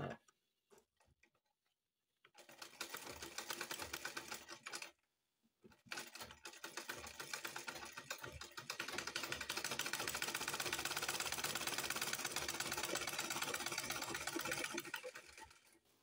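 Manual black-head sewing machine stitching: a rapid, even clatter of the needle mechanism in a short run of about two and a half seconds, a brief pause, then a longer run of about ten seconds that stops just before the end.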